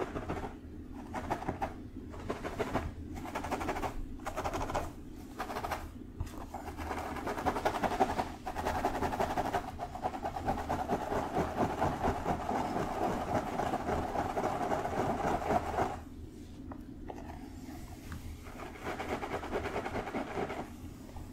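Fingertips scratching and rubbing through long hair close to the microphone, a crackly rustle. It comes first as separate strokes about once a second, turns into louder, continuous scratching about eight seconds in, and goes softer and lighter for the last few seconds.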